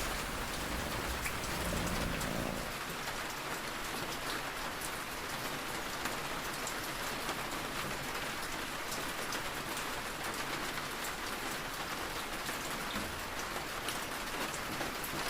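Steady rain falling and pattering on a surface.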